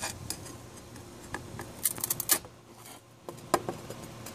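QEP compound tile nipper biting small chips off the edge of a ceramic tile: a series of sharp clicks and crisp snaps as the tile breaks away. There is a quick cluster about two seconds in and another snap about a second later.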